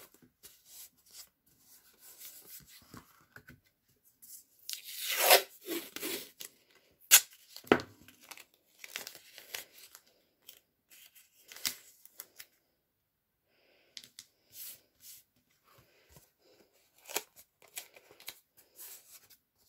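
Brown tape being pulled from a roll, torn off and pressed and rubbed down onto board by hand: intermittent rips and crinkles, the longest rip about five seconds in, followed by a couple of sharp snaps.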